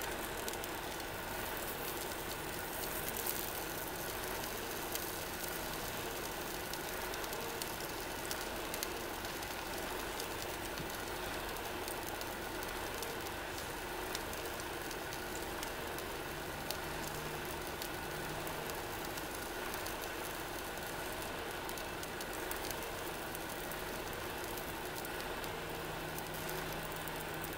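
Small canister gas stove burner hissing steadily under a frying pan of takoyaki as they heat through, with faint sizzling and a few light clicks.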